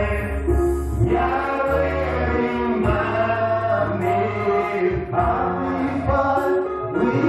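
Gospel worship song: a choir singing together over deep held bass notes from the accompaniment.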